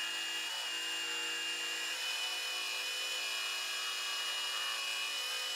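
Ridgid jigsaw running steadily as its blade cuts through a wooden board, removing the waste between drilled holes. A steady high whine sits over the noise of the cut.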